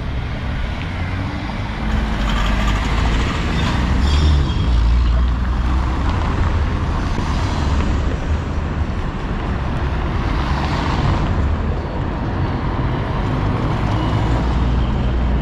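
City street traffic: motor vehicles running and passing close by, with a steady low engine rumble and several swells of louder noise as they go past.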